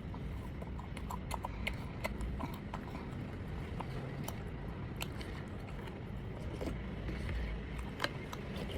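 Scattered light clicks and taps of plastic takeaway food containers and packets being handled and opened, over a steady low hum.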